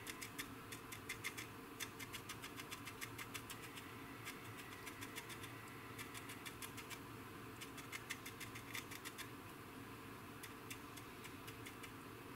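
Faint, quick ticks of a paintbrush dabbing weathering paint onto a plastic model's wing, coming in irregular runs of several a second with short pauses, over a low steady hum.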